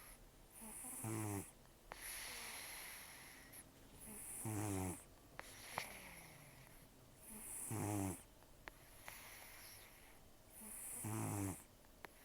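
An elderly cat snoring in its sleep. There are four rough, rattling snores about three seconds apart, with noisy breathing between them. The cat's snoring and nasal breathing are very rough.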